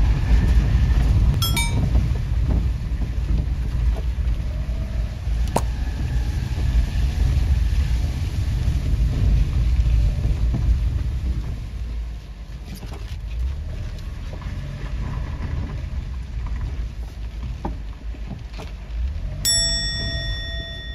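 Kei van driving slowly over a gravel track: low engine and tyre rumble with wind buffeting the microphone, dropping a little about twelve seconds in. A short ringing chime sounds near the end.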